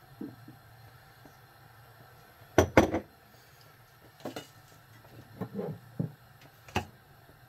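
Kitchenware being handled: a few short clinks and knocks, the loudest pair about two and a half seconds in and smaller ones spread after it, over a faint low hum.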